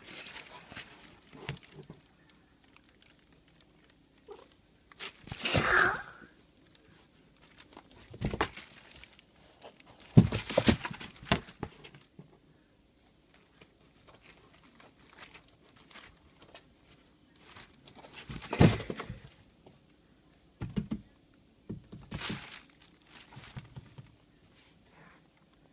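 Strange noises from inside a box: scattered bouts of rustling, scratching and knocking, the loudest about 6, 10 and 18 seconds in, with small ticks between.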